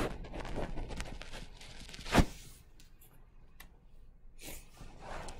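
Faint taps of a stylus writing on a touchscreen, with one sharper click about two seconds in.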